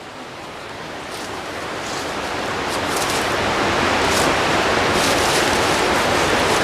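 Rushing river water, a steady hiss that grows louder over the first few seconds and then holds.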